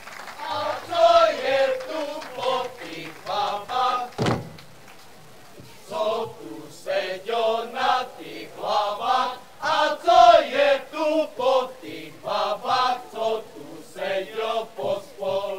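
A group of women's voices singing a folk song unaccompanied, in short rhythmic phrases with brief pauses. A single sharp thump sounds about four seconds in.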